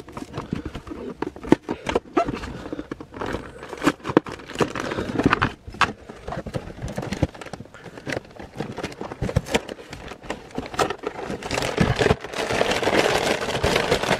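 A cardboard Lego box being opened by hand: irregular clicks, scrapes and tearing of the cardboard. About twelve seconds in it turns into a denser, continuous crinkling as the plastic bags of bricks inside are handled.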